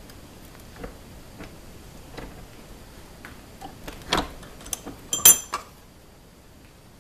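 Small steel gunsmithing tools clinking and tapping against metal: a few light ticks, then a cluster of sharper ringing clinks about four to five and a half seconds in.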